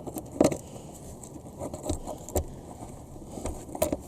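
A handful of light metallic clicks and knocks, irregularly spaced, from bolts, a bracket and hand tools being handled while 12mm bolts are started by hand into a shifter bracket.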